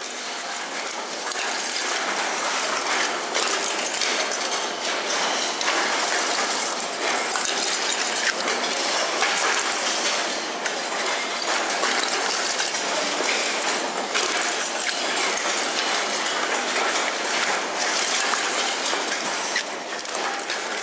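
Scallops being shucked by hand at speed: a dense, continuous clatter and clicking of shells and the shucking knife.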